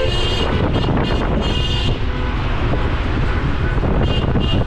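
Wind buffeting the microphone over the rumble of road and traffic from a moving car. Car horns honk briefly at the start, again about a second and a half in, and once more near the end.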